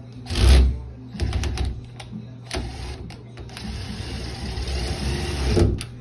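Porter-Cable cordless driver running a screw into a doorknob's mounting plate in several short bursts, then one longer run of about two seconds that stops near the end. The screws had been started by hand, so the driver is running them home to clamp the two halves of the knob together.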